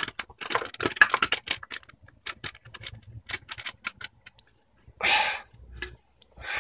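Loose bolts and small metal hardware clinking as they are sorted through by hand: a quick run of small sharp clicks, then a louder scraping rush about five seconds in.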